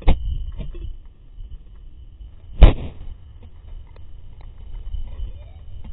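Two loud, sharp knocks right on the camera, at the start and about two and a half seconds in, as a Labrador's muzzle bumps the GoPro housing. Softer clicks and light taps come in between.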